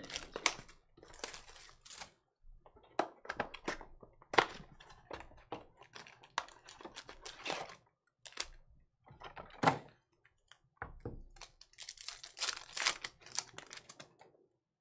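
Trading-card hobby box and foil card packs being handled and opened on a table: irregular sharp clicks, taps and rustles, with a denser stretch of crinkling near the end.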